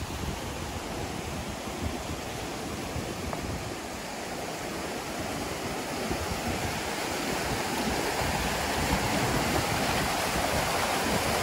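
Rushing water of a waterfall, a steady hiss that grows gradually louder.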